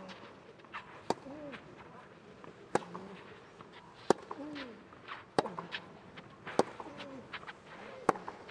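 Tennis ball struck back and forth in a baseline rally on clay: six sharp racket hits about a second and a half apart, most followed by a short grunt from the player.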